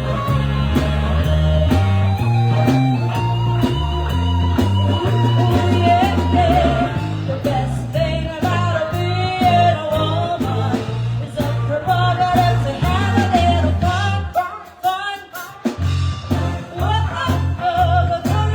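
Live band music with a singer, steady bass and drums; the low end drops out for about a second near the end before the band comes back in.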